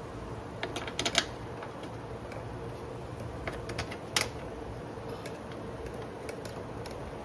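Scattered metallic clicks and knocks of hand tools working on a car starter as it is fitted back in, with a cluster of clicks about a second in and a sharper knock near four seconds, over a steady low hum.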